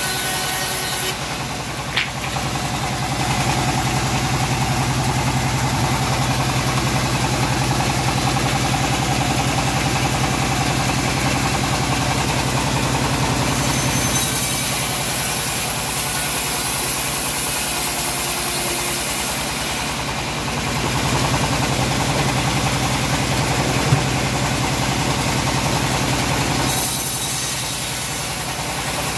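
Homemade bandsaw mill running with a steady drone, its blade sawing through teak wood with a hiss for long stretches. A sharp tick comes about two seconds in and a short knock later on.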